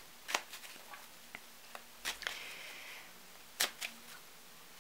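A tarot deck being shuffled by hand: several sharp clicks of cards striking and snapping against each other, with a short rustle of cards sliding about two seconds in.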